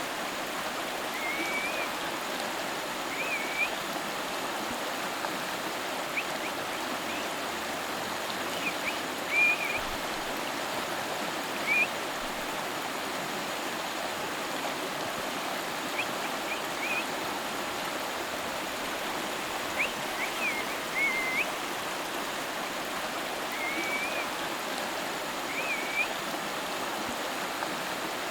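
A river flowing: a steady rush of running water, with short high chirps every few seconds.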